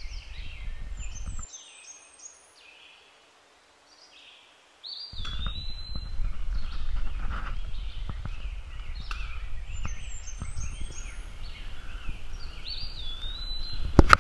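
Birds chirping and trilling over and over, with wind rumbling on the microphone; the wind drops away about a second and a half in and comes back around five seconds. Near the end come a few sharp knocks as the camera is handled.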